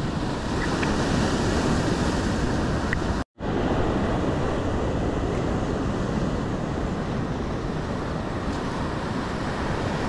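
Ocean surf breaking and washing up over a rocky shore, a steady rushing roar, with wind noise on the microphone. The sound cuts out completely for a moment about three seconds in.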